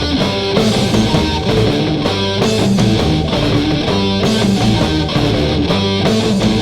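Rock music led by guitar, with a steady drum beat and no singing.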